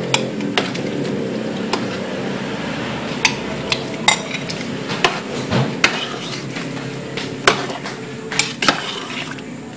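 A utensil clinking and scraping against a cooking pot while cream is stirred into the simmering chicken, carrots and potatoes. The clinks are sharp and irregular, over a steady hiss.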